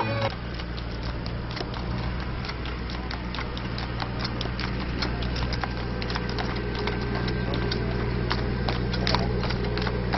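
Horse's hooves clip-clopping on a tarmac road as it pulls a two-wheeled cart, with a quick, irregular run of hoof strikes. A steady low hum runs underneath.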